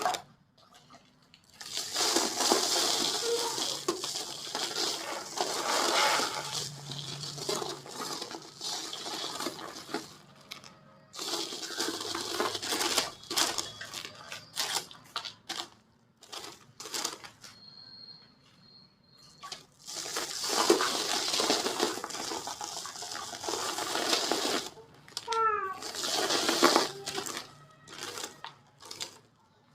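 Dry white cement shapes crumbling and crushing by hand: crisp crackling and snapping in several long bursts, with short pauses between them.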